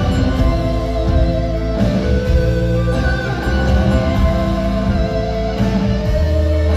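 Live band playing a song with guitars, keyboard and drums, recorded from the audience in a concert hall.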